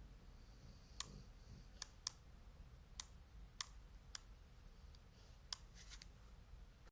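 Near silence broken by about ten faint, sharp clicks at uneven intervals.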